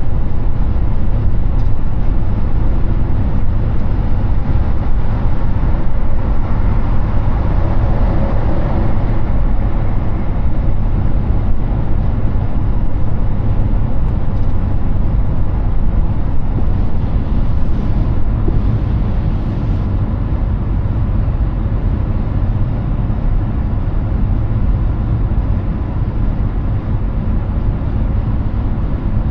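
Steady highway road noise from a Hyundai Ioniq 6 electric car at speed: a dense low rumble of tyres and wind, with a louder swell about eight seconds in.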